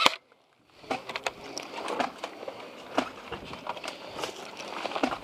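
A single sharp pop from a pistol shot right at the start, the last of a quick string. After a short pause comes a steady rustling with scattered small clicks and taps.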